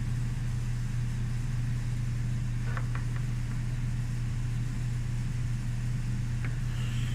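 A steady low hum, with a faint brief scratch about three seconds in.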